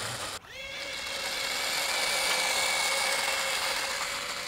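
The mini RC Boeing 747's four small electric ducted fans whining at high throttle on the takeoff run. The steady high whine starts abruptly about half a second in, swells, then fades a little near the end.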